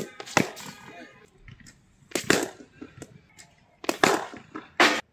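Cricket ball deliveries in a net: sharp knocks of the ball bouncing on the concrete pitch and being struck by the bat, about five in all, coming in pairs a fraction of a second apart.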